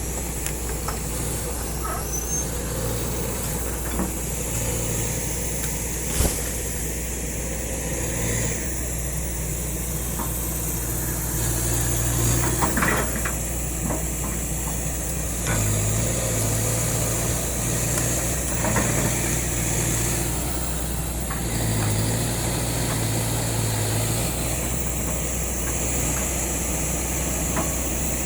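Kobelco excavator's diesel engine running steadily, its note stepping up for stretches and dropping back, with a few knocks, a sharp one about six seconds in.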